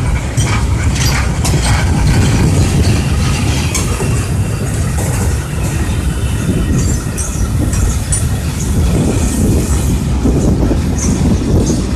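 Train of covered hopper wagons rolling past close by: a steady low rumble of wheels on rail, with sharp clicks and clanks over the rail joints in the first couple of seconds. There are brief high wheel squeals about seven seconds in and again near the end.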